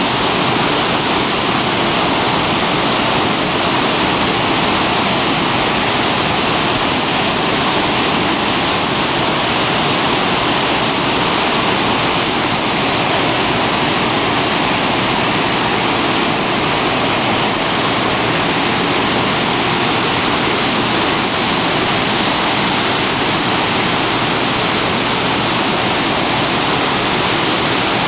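Spokane River's falls and rapids near flood stage: a loud, steady rush of whitewater that never lets up.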